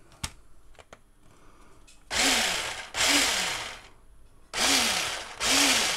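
Battery-powered electric drive motor and gearbox of a toy RC monster truck whirring in four short bursts, each rising in pitch and falling away as the motor is driven from the remote.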